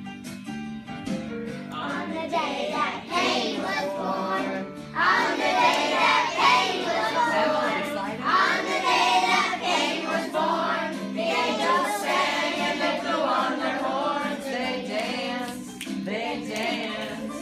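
A group of young children singing along with a recorded song that has instrumental backing, getting louder about five seconds in.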